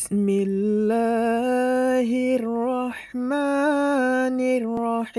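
Intro jingle: one wordless voice holding long, slightly wavering notes, with short breaks about two and a half seconds in and again near the end.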